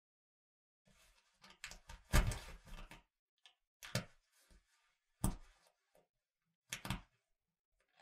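Jacket buttons clicking as they are handled. About a second in comes a busy run of clicks and rustling, then single sharp clicks roughly every second and a half, the last one doubled.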